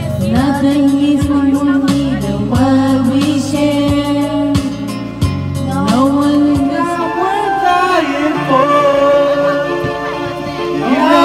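Karaoke: a voice singing a slow pop ballad into a microphone over the machine's backing track, with long held notes.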